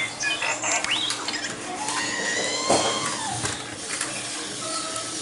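A Sphero Star Wars toy droid's small drive motors whirring as it moves, with quick rising electronic chirps around the start and a couple of short beeps near the end.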